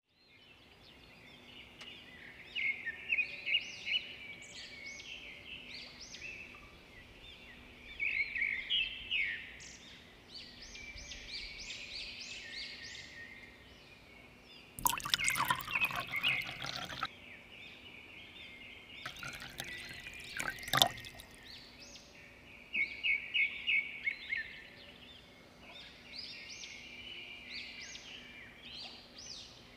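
Water pouring from a watering can into a potted plant, in two stretches about midway, over birds chirping in short, repeated phrases throughout.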